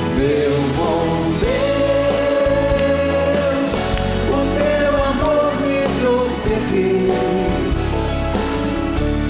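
Live band playing a slow worship song: drum kit with cymbals under long held melody notes and a steady bass, with no words sung.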